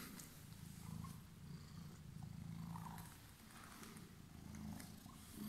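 Calico cat purring steadily, the low purr swelling and easing about every second or two.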